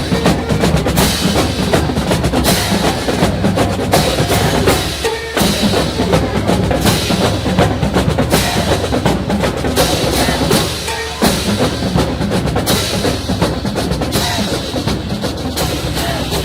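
Marching band drumline playing a loud, steady drum cadence, with only brief breaks in the rhythm.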